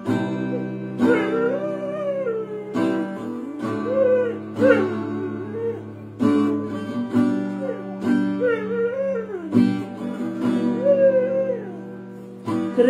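Acoustic guitar strumming chords while a dog howls along in wavering, drawn-out notes that slide up and down, about half a dozen howls with short breaks between them.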